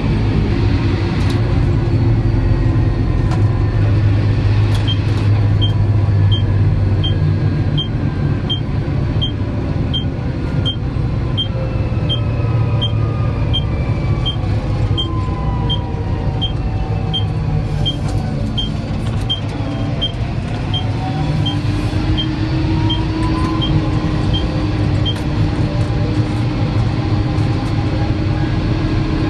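Tractor engine running steadily while towing a bale trailer, with a whine that slides down in pitch and back up around the middle. A sharp tick repeats about twice a second from about five seconds in until about twenty-five seconds in.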